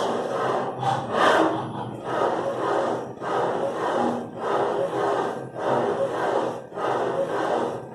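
Retrofitted CNC router running a job, its cutting and drive noise swelling and dipping about once a second as it makes repeated back-and-forth passes.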